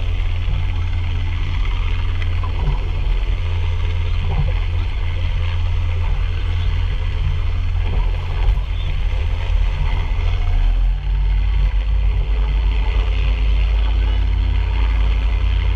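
Rigid inflatable boat's engine running steadily as a low drone, under a hiss of wind and water.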